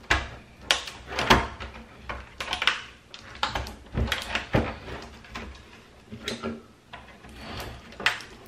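Plastic casing of a Philips 243V5LHAB LCD monitor being pried apart by hand. It gives an irregular series of sharp clicks and cracks with scraping and creaking as the screwless housing is forced open.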